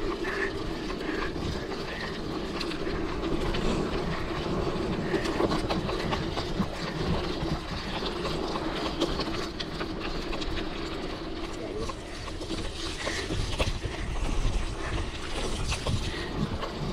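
Mountain bike rolling over a bumpy dirt trail: a steady rumble of tyres with a constant clatter of small clicks and rattles from the bike.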